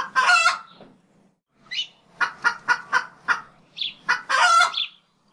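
A rooster calling: a squawk at the start, a quick run of about six clucks, then a longer call near the end.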